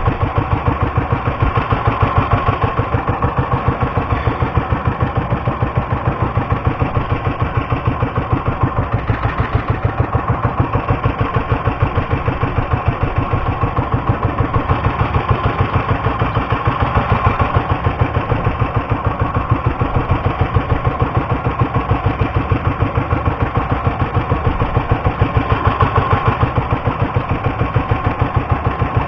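Motorised outrigger fishing boat's engine running steadily, with a rapid, even putter.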